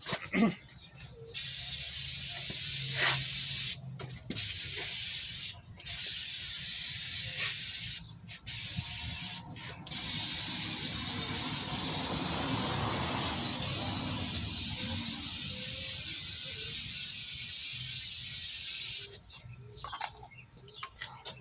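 Water sealer being sprayed: a steady spray hiss in several long bursts with short breaks between them, the longest lasting about nine seconds near the end.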